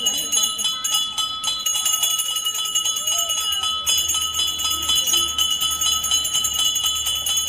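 Puja bell rung rapidly and without pause during a camphor aarti, its clear ringing tones held steady over a fast run of clapper strikes.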